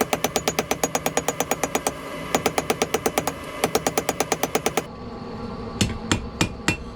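Hammer strikes ringing on steel as a railroad spike is forged: three quick runs of even blows, about seven a second, with short pauses between them. About five seconds in they change to slower, heavier blows, about three a second.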